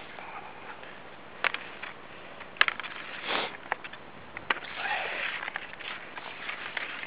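Skis scraping along a packed, icy snow track, with several sharp clicks and a short sniffing breath about three seconds in.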